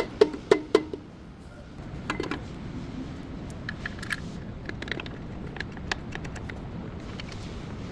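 Light metallic clicks and clinks of metal parts or tools being handled, with four sharp ones in the first second and scattered lighter ones after, over a steady low background noise.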